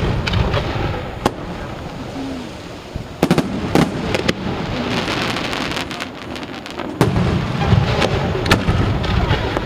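Aerial fireworks display: shells bursting with sharp bangs over a deep rumble. A cluster of reports comes a little after three seconds in, then a stretch of crackling, and from about seven seconds in a louder rumble with more bangs.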